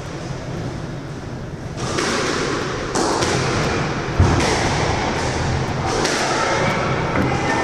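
Squash court sounds: the ball thudding off the walls and players moving on the court, with one loud thump about four seconds in.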